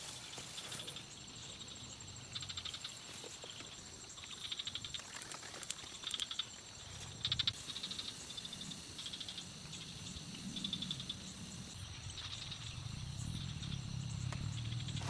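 Frogs calling in short, rapid pulsed trills, one after another, over a steady high insect drone, with a low rumble underneath that grows near the end.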